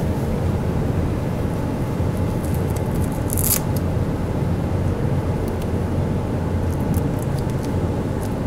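Steady low room hum, with one short rasp of fabric about three and a half seconds in and a few faint soft rustles as the fabric canopy is handled.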